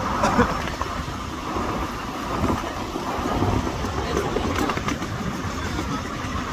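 Ride-on miniature railway train on 7¼-inch-gauge track, heard from aboard a passenger car: the wheels running along the rails with a steady noise.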